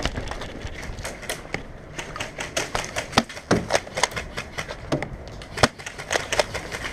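Scattered sharp snaps of airsoft gunfire, irregular single shots and short strings, a few each second, with one louder crack about three seconds in and another a little past five and a half seconds.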